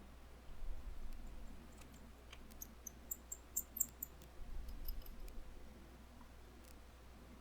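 Faint, sharp little clicks and ticks of a precision screwdriver working the small bracket screws inside an iPhone, bunched in the middle, with two short spells of dull low handling rumble.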